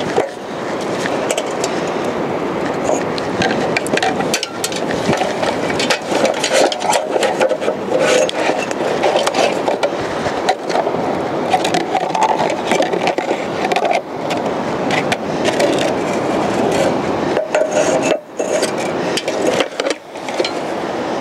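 Clicks, knocks and scrapes of the line spool being handled and lifted off an aluminium beach longline winch, over a steady rushing background of surf and wind.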